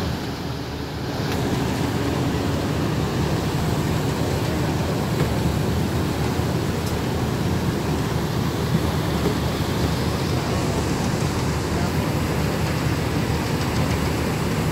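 Steady rumble and rush of a car ferry under way, with its engines droning and its wake churning at the stern, mixed with wind noise on the microphone.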